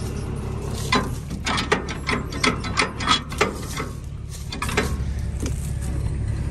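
Rusty lever and brake linkage of an old John Deere tractor clicking and clanking as it is worked by hand to free brakes stuck from years of sitting: a string of sharp metallic clicks from about a second in to near the end, over a steady low engine hum.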